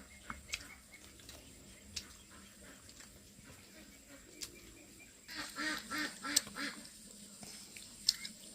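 A duck quacking, a quick run of five or six quacks about two thirds of the way in, with a few sharp clicks scattered around them.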